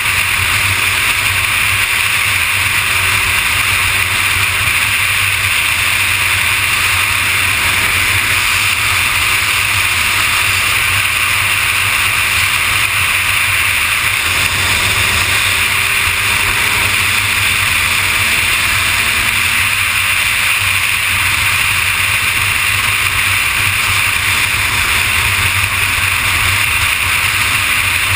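Steady rush of wind over the microphone at freeway speed, with a Kawasaki ZX-6R's inline-four engine running under it.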